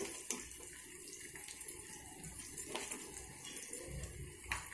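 Brinjal pieces frying gently in oil in a pan, giving a faint, steady sizzling hiss, with a few light clicks as spice powder is spooned over them.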